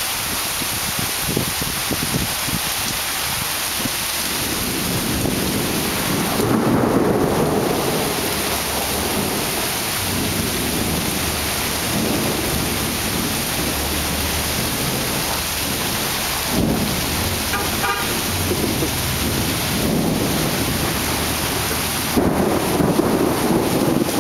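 Heavy rain pouring down steadily in a thunderstorm, with thunder rumbling up about six seconds in and again near the end.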